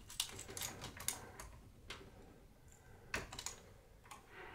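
Faint, scattered clicks and taps of small metal parts being handled and fastened as the bottom shelf of a GPU anti-sag bracket is attached.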